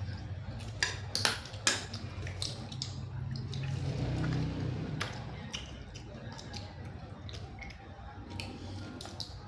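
Hard cockle shells clicking and clinking as they are handled and pried open while eating, in a string of sharp clicks with the loudest ones a second or two in, over a low steady murmur.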